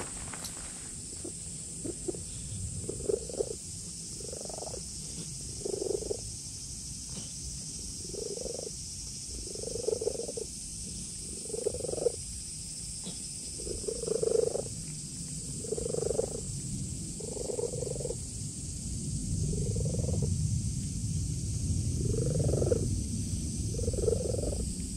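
A cat purring close up while it is stroked, the purr swelling and easing in a slow breathing rhythm about every one and a half to two seconds: a sign of a relaxed, contented cat.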